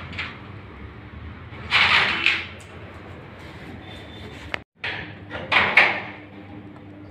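A dog pawing and scratching at a glass-panelled wooden door, the door rattling in its frame. There are two short scraping bursts, about two seconds in and again near six seconds.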